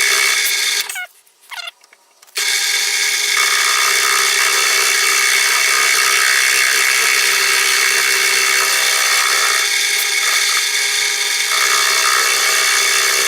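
Drill press running with a cutter milling a cast iron casting, a steady whine with a high metallic hiss. It drops out briefly about a second in, then runs on evenly.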